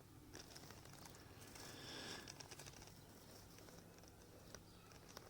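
Near silence: faint outdoor room tone with a few soft clicks and a light rustle about two seconds in.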